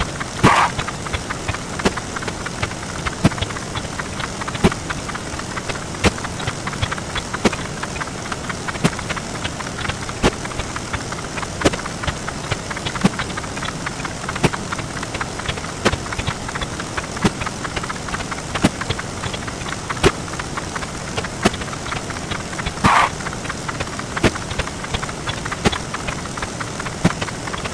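A dense, steady wash of counting sound effects sped up 64 times, blurred into a constant churning buzz of tiny clicks, with a louder click about every second and a half. There is a brief brighter swish about half a second in and another about 23 seconds in.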